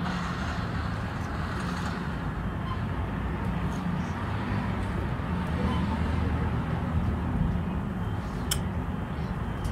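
A steady low hum with an even background hiss, and a couple of faint clicks near the end.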